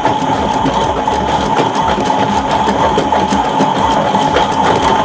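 Toy washing machine's small electric motor running its drum through a spin cycle: a steady whirring whine with a rattle underneath.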